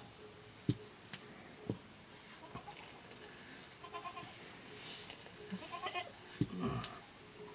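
A wooden stirring stick knocking sharply against a metal cooking pot three times while rice is stirred, with a goat bleating in short calls in the second half.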